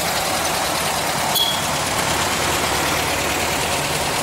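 Air-cooled flat-four engines of vintage Volkswagen Beetles running steadily as the cars drive past one after another, with a brief sharp click about a second and a half in.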